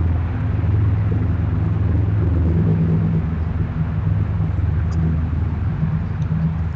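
Low, steady engine rumble with a deep hum, easing off slightly near the end.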